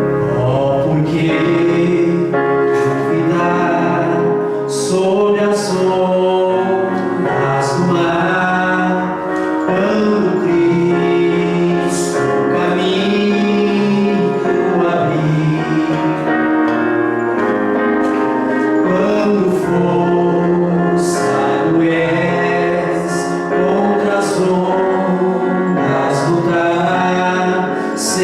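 Gospel hymn sung by mixed voices over organ or keyboard accompaniment, continuous and full.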